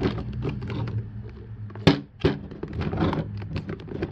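Hard plastic parts of a Jacuzzi J-D300 pool cleaner clicking and knocking against each other as they are handled, with two sharp clacks about two seconds in, over a steady low hum.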